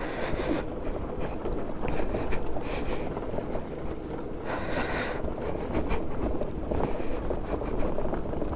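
Wind buffeting the microphone and a scooter's tyres rolling over loose dirt and gravel on a slow, steep descent. Louder rushes of hiss come at the start and again about five seconds in.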